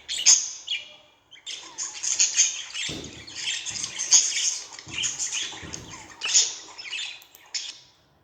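Budgerigar chirping and warbling in a rapid, continuous run of high chirps, with a brief pause about a second in. A few soft low thuds are heard under it in the middle.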